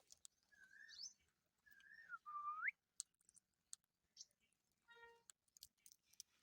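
Indian ringneck parrot whistling: three short whistled notes, the last a quick rising glide, followed by soft scattered clicks and one short call.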